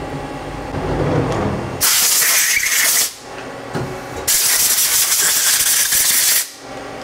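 Two loud hissing blasts of compressed air, the first about a second long and the second about two seconds, from an air blow gun blowing off a freshly turned part inside a CNC lathe.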